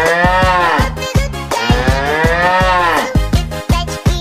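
Cow mooing set to an electronic dance beat: two long moos that rise and then fall in pitch, over regular kick-drum thumps.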